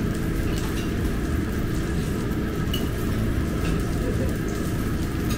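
Steady restaurant din: a low rumble under a hiss, with faint scattered pops and ticks.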